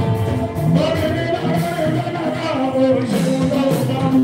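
Live Fuji music: a male lead singer sings a melodic line with held notes into a microphone over continuous band accompaniment.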